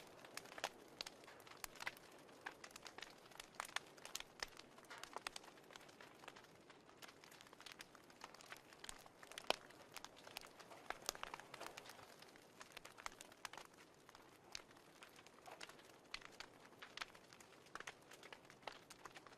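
Faint wood fire crackling, with irregular sharp pops and snaps over a soft hiss.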